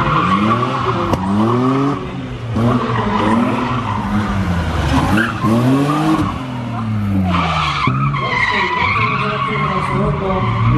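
BMW E30's engine being driven hard through corners, its pitch repeatedly rising as it revs and dropping again. A tyre squeal comes in over it in the last few seconds as the car slides.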